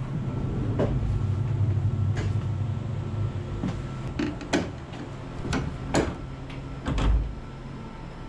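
A train: a steady low hum that eases off about four seconds in, with a run of sharp knocks and clunks, the loudest in the second half.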